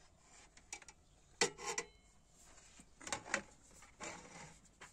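A few scattered light knocks and clinks of metal kitchenware being handled, with a short metallic ring about two seconds in.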